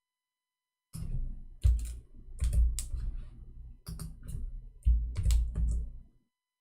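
Typing on a computer keyboard: a quick run of clicking keystrokes with dull thuds, starting about a second in and stopping shortly before the end.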